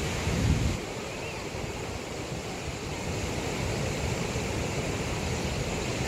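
Steady rushing of the Athirappally waterfall heard from the overlook above it, with wind buffeting the microphone during the first second.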